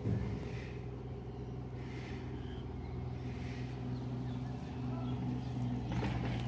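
A steady low hum of a motor vehicle engine running.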